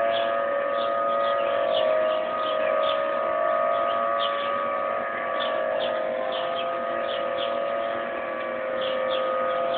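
Outdoor tornado warning siren sounding one steady tone, level in pitch, swelling and fading slightly in loudness. It signals a tornado warning, which is taken to mean a touchdown has been sighted in the area.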